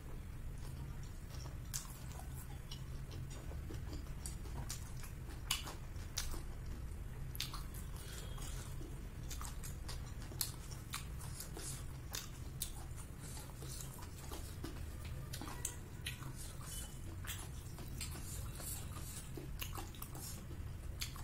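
Close-up chewing of a mouthful of food, with many short scattered clicks and mouth smacks over a steady low hum.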